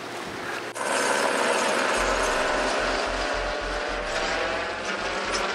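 Helicopter flying overhead: the rapid chop of its rotor blades over a steady engine noise. It comes in suddenly a little under a second in.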